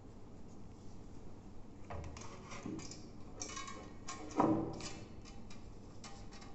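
A metal baking tin being handled while a rubber band is stretched around it: a run of small clicks and knocks. About four and a half seconds in, one louder knock makes the tin ring briefly.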